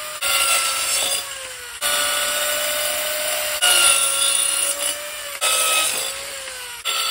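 Corded compact circular saw running at speed and cutting through thin panels, in several short passes spliced together. The motor's steady whine sags and winds down at the end of a couple of passes.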